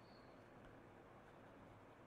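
Near silence: faint steady background hiss.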